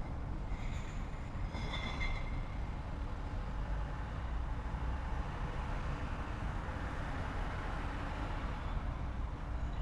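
Ambience outside a subway station: a steady low rumble of trains and traffic, with short high tones in the first two seconds.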